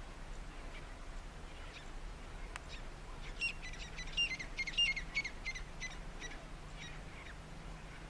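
Grey francolin calling: a run of about a dozen sharp, high, repeated notes, about three a second, starting a little past three seconds in, loudest in the middle and fading out near the end. A territorial call between rival francolin groups.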